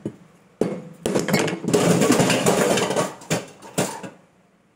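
A kitchen knife hacking and scraping at a coconut's shell: a rapid, loud clatter of knocks and scraping for about three seconds, fading out near the end.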